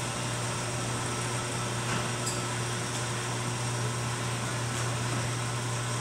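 Wall-mounted garage door opener motor running, driving its chains and belt as it moves the sectional door: a steady low hum.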